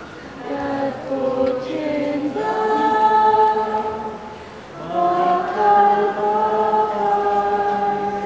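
Several voices singing long held notes together, with a brief dip in the singing about four and a half seconds in.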